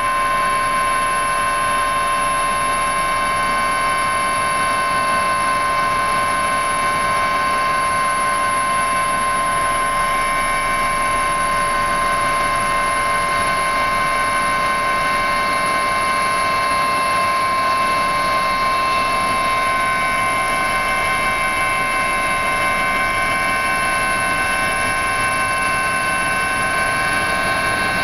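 Helicopter in steady flight heard from inside the cabin: a loud, unchanging drone of engine and rotors with a steady whine on top.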